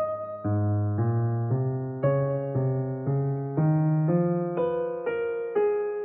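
Background music: electric piano playing a slow, even run of notes, a new note or chord about every half second over a bass line that climbs step by step.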